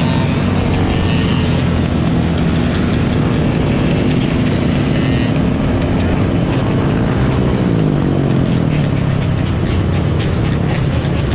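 Several dirt bike engines running together, with one engine's pitch falling about eight seconds in.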